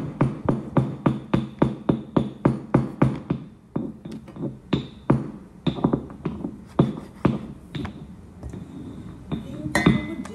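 Background music with a fast, steady drum-machine beat, about four beats a second, that turns sparser and less regular after the first few seconds.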